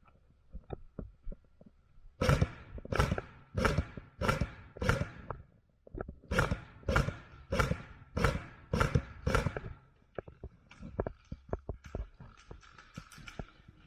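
Footsteps at a steady walking pace, about one and a half steps a second, in two runs of five and six heavy steps with a short pause between. Softer, quicker clicks and taps follow near the end.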